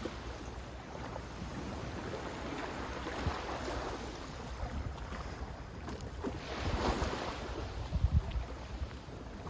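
Sea waves washing in steadily, with one wave building and breaking about seven seconds in. Low wind buffeting on the microphone near the end.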